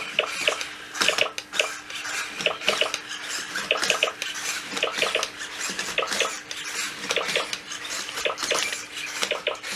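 Sony Aibo ERS-311 robot dog walking in a mode where it plays a sound with every step: a quick, busy patter of clicks and short electronic blips, several a second, over a faint steady hum.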